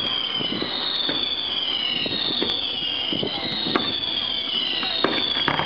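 Whistling fireworks fired one after another, about one a second: each is a high whistle sliding down in pitch and overlapping the next. A few sharp pops come near the end.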